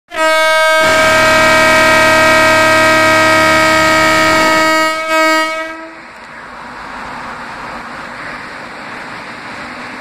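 WAP-7 electric locomotive sounding both its horns together as a departure signal: a high horn, joined within the first second by a lower-toned one, held for about five seconds until it cuts off about six seconds in. A steady rushing noise follows.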